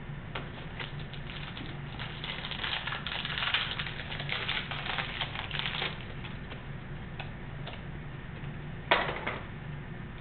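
Baseball card pack wrappers crinkling and crackling as packs are torn open and the cards handled. The crackling is densest in the middle, with one brief louder burst near the end.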